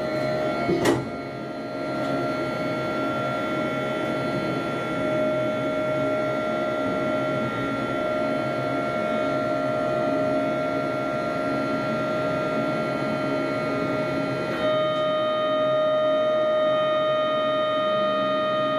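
Ship's deck crane machinery running, heard inside the operator's cab: a steady whine with several tones over a hum, with a short knock about a second in. About fifteen seconds in, the whine changes and gets a little louder as the crane is driven through a motion.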